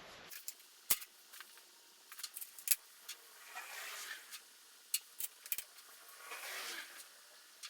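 Scattered light metallic clicks and clinks of small hardware and hand tools being handled, with some soft rustling in between.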